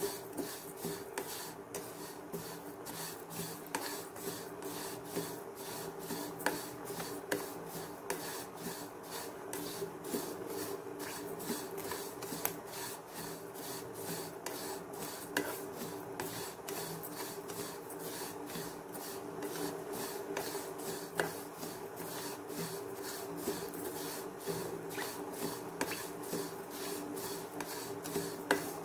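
Spatula scraping and stirring black sesame seeds as they dry-roast in a pan, in rhythmic rasping strokes. A steady hum runs underneath.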